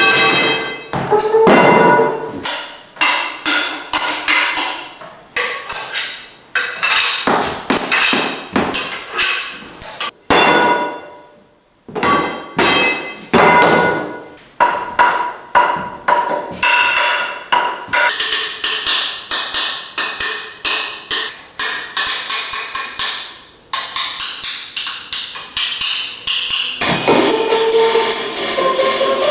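Percussive music of struck wooden and metal sculpture-instruments: irregular knocks and taps, each with a short ringing tone at a few fixed pitches, like a rough xylophone. Near the end the strikes give way to a denser, continuous rattling texture.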